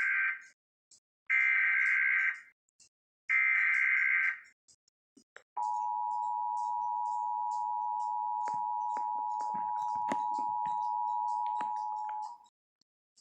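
Emergency Alert System header: the end of one shrill warbling data burst and two more of about a second each, then the steady two-tone EAS attention signal, held for about seven seconds with faint clicks running through it before cutting off.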